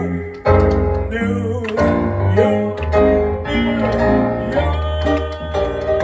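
Live band music starting with a jump about half a second in: keyboard chords and a bass line, with a voice singing over them into a microphone.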